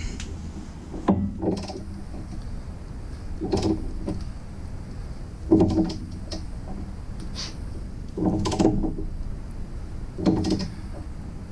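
Ratcheting torque wrench worked in strokes on a Jeep suspension bolt, a short mechanical burst about every two seconds as the under-torqued bolt is tightened.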